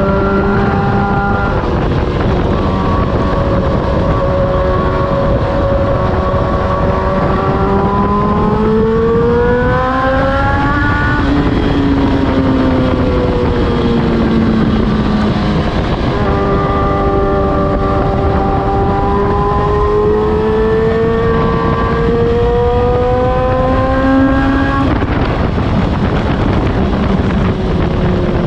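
Suzuki GSX-R1000 inline-four engine running through an Austin Racing muffler, its exhaust note rising and falling with throttle. It climbs about ten seconds in, sinks slowly, then climbs again and drops off sharply near the end.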